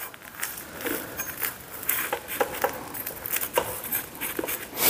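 A spatula scraping and tapping on a dosa griddle as a crisp dosa is folded over. It makes a scatter of short scrapes and clicks, with a louder knock at the end.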